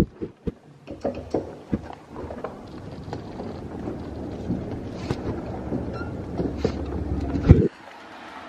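A few sharp knocks and clatter as a glass door is pushed open and a rolling suitcase is pulled through, then a steady rumble of the suitcase's wheels on pavement with wind on the microphone, cutting off suddenly near the end.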